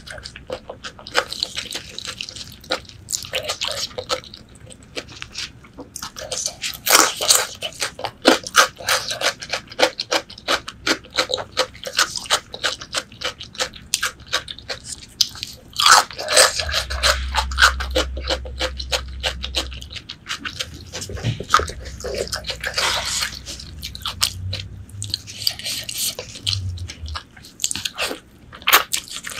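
Close-miked chewing of braised pork leg: wet, sticky mouth clicks and smacks, with biting and crunching, coming thick and fast throughout.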